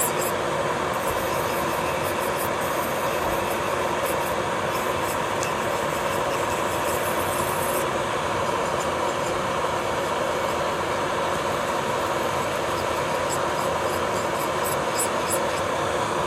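Electric nail drill (e-file) running steadily with a constant whine, its bit grinding base gel off a fingernail with a fine gritty crackle for the first several seconds, then spinning free once it is lifted off the nail about halfway through.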